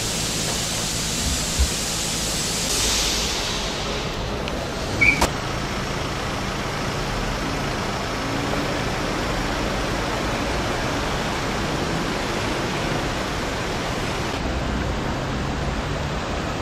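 Steady rushing noise of a fast river mixed with passing road traffic, with a couple of short knocks about one and a half and five seconds in.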